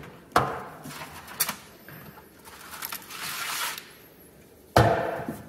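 Steel transfer-case parts being handled on a metal workbench: a few sharp metallic clunks and the rattle of the drive chain as it is slipped off the sprockets, with the heaviest clunk near the end.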